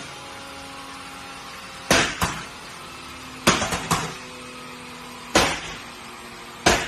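Mercedes-AMG C63 coupe's twin-turbo V8 idling, broken four times by short bursts of sharp exhaust pops and bangs.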